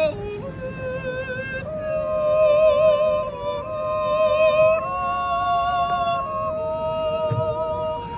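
A group of Appenzell yodelers sings a slow wordless natural yodel in close harmony. The men hold long chords under a wavering upper voice, and the chord moves to new pitches every second or two.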